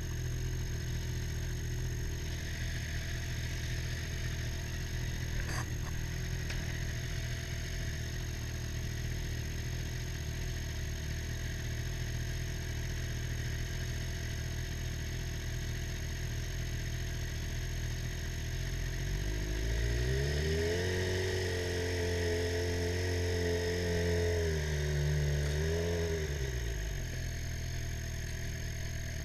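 Sport motorcycle engine idling steadily. About two-thirds of the way in, the revs rise and hold for several seconds, dip and rise briefly, then drop back to idle.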